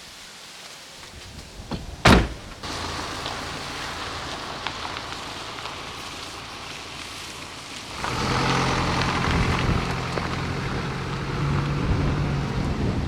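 A single loud thump about two seconds in, then a steady motor hum with a low drone that gets louder about eight seconds in.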